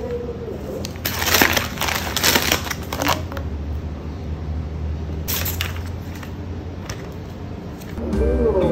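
Plastic food packaging crinkling and rustling as groceries are handled in a cloth bag, in a burst of about two seconds and a shorter one a couple of seconds later.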